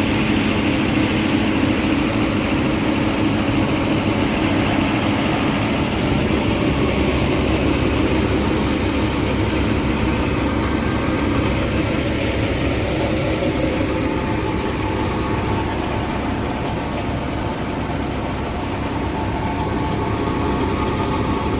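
Steady, loud drone of heavy farm tractor engines working at speed while grain is unloaded from a grain cart into a grain bagger, the engine noise blended with the rush of the grain-handling machinery.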